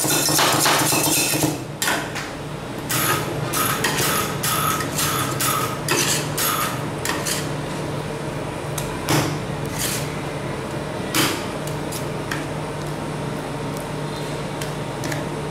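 Metal spatulas working ice cream mix on a steel cold plate: rapid chopping at first, then separate clicks, taps and scrapes as the mix is spread, over a steady low hum.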